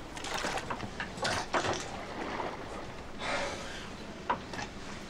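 Chum being scooped from a bucket with a ladle and slopped over the side: a few wet scrapes and splats, then a single sharp knock, over the low steady rumble of the boat's engine.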